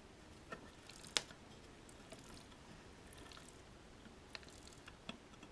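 Faint clicks and light handling noise from a Maytag agitator transmission being turned by hand, with one sharper click about a second in and a few weaker ones later.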